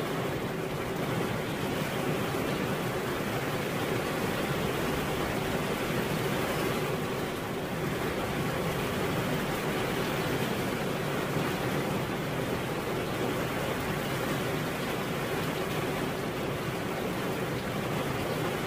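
Steady rain falling, an even hiss with no separate drops standing out.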